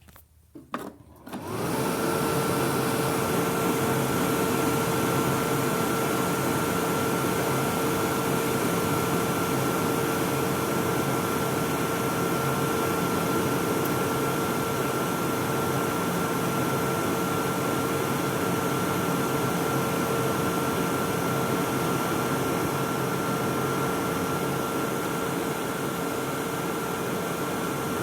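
Electric hand dryer starting up about a second and a half in, then blowing steadily: a loud rush of air with a steady motor whine.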